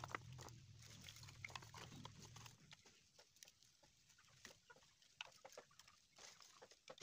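Faint, scattered clicks and taps of dry wooden sticks being laid by hand onto a stack, with a faint low hum that fades out about two and a half seconds in.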